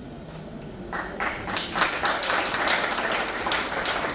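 Audience applauding, starting about a second in: many hands clapping together.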